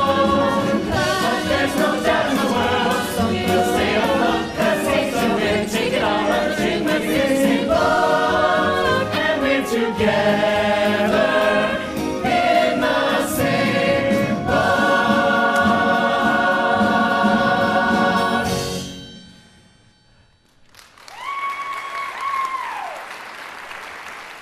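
A musical-theatre company chorus sings the final bars of a show tune with band accompaniment, ending on a long held chord that cuts off sharply. After a short pause, audience applause begins with a falling cheer on top.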